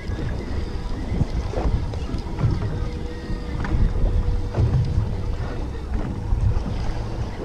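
Wind buffeting the microphone on an open fishing boat: a steady low rumble with a few faint knocks.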